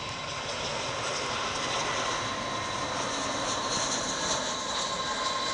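Jet airliner engines: a steady rush of noise with a constant high whine over it.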